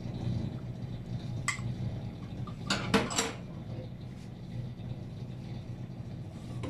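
Glassware and dishes clinking as they are handled on a kitchen counter: a single sharp knock about a second and a half in, then a quick cluster of clinks near the middle, over a steady low hum.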